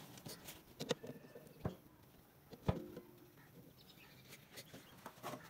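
A few scattered clicks and knocks from a plastic oil jug and a cut plastic-bottle funnel as engine oil is poured into a tractor's filler. The loudest knock comes about two and a half seconds in and rings briefly.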